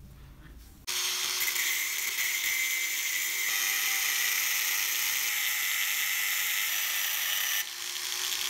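Angle grinder with a thin cutting disc starting up about a second in and cutting into the metal end of an old meat grinder's crank handle, a steady high-pitched whine with a hissing edge. It eases off briefly near the end.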